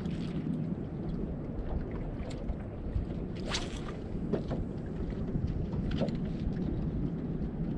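Wind buffeting the microphone and water moving against a small fishing boat, with a few faint clicks and one brief swish about three and a half seconds in.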